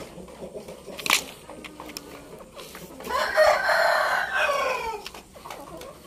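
A rooster crows once, a call of about two seconds starting about three seconds in, its pitch falling away at the end. A sharp click comes about a second in.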